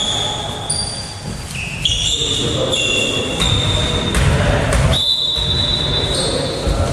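Volleyball being played in an echoing sports hall: thuds of ball and feet on the wooden floor, with high squeaks coming and going.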